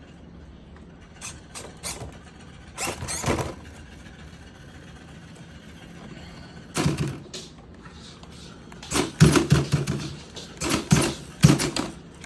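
Redcat 1959 Chevrolet Impala RC lowrider's suspension servos whirring in short bursts, with knocks as the car lifts, tilts and drops onto the wooden bench. A few scattered bursts come early, then a rapid run of loud ones over the last three seconds.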